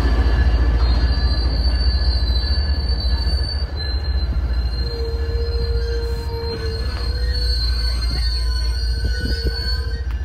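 Commuter rail coaches rolling past at a platform, their wheels squealing in several thin, steady high-pitched tones that fade in and out over a low rumble.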